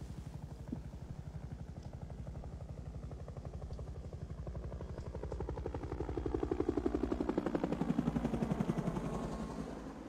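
Helicopter rotor beating rapidly and steadily. It swells louder about five seconds in, its pitch sliding down as it passes, then fades near the end.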